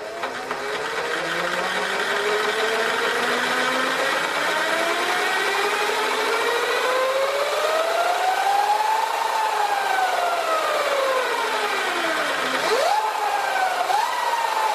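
Sur Ron Light Bee electric motor and drivetrain spinning with the bike on a stand. The whine climbs slowly with the throttle for about nine seconds, then falls, and two quick throttle blips near the end send it back up. Under the whine is a repetitive clanking from the drive sprocket, a noise that sounds very similar to a failing jackshaft bearing.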